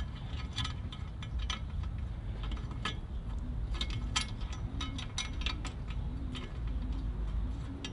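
Irregular light metallic clicks and clinks of bolts and a metal bumper being handled and fitted to an ATV's frame, with the bolts put in by hand.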